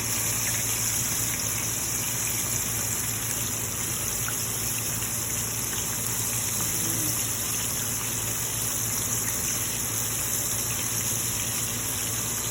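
Cornstarch-coated chicken breast cubes deep frying in a pan of hot oil: a steady sizzle.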